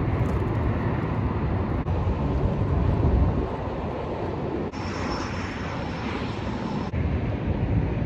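Wind buffeting the microphone on an open boat: a steady low rumble that rises and falls. About halfway through, a faint high whine sounds for roughly two seconds.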